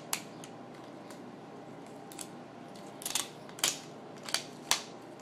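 Adhesive tape being peeled off the back of a laptop LCD panel: a series of sharp crackling clicks, irregularly spaced and bunched in the second half.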